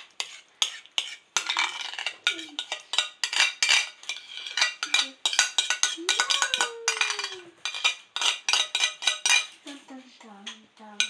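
A spoon scraping and tapping mashed squash off a plate into a bowl of flour: rapid, repeated clinks and scrapes.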